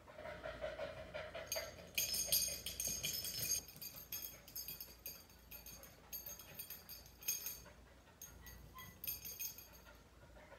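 Goldendoodle puppy whining: a held whine in the first second and a half, then several short, high-pitched whimpers, louder at first and spaced out later.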